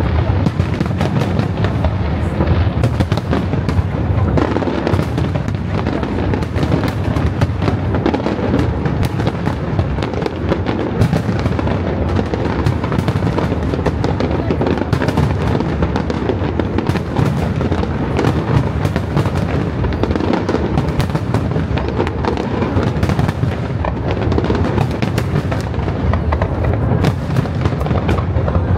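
Fireworks display going off in a dense, unbroken barrage of bursts, bangs and crackles over a steady low rumble, with music playing underneath.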